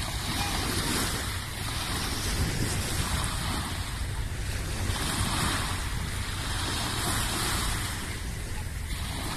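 Wind blowing across the microphone, rising and falling, over small waves lapping at the river's edge.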